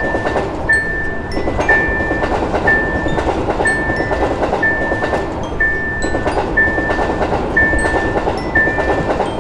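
Railroad crossing warning bell ringing: one bright ding about once a second, over a dense continuous clatter.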